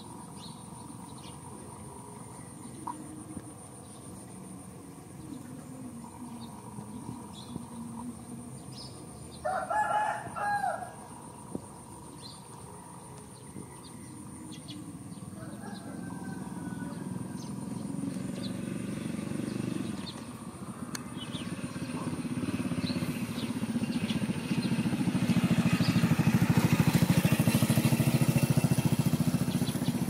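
A rooster crows once, about a third of the way in. From about halfway, a motor vehicle's engine grows steadily louder as it approaches, and it is the loudest sound near the end.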